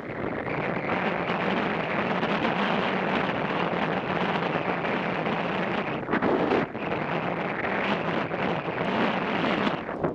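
Wind rushing over the microphone of a camera mounted on a moving motorcycle, with the motorcycle's engine running underneath. The noise dips briefly about six and a half seconds in.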